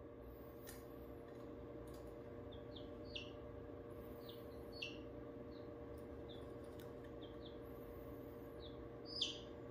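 17-day-old chicks peeping in a brooder: about a dozen short, high, falling peeps scattered through, the loudest near the end. A steady low hum runs underneath.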